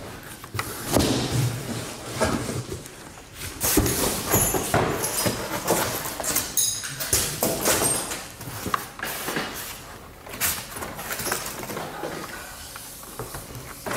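Cardboard shipping box being unpacked by hand: irregular scraping, rustling and sliding of cardboard and packed panels, with scattered knocks and thuds as the lid and panels are lifted out.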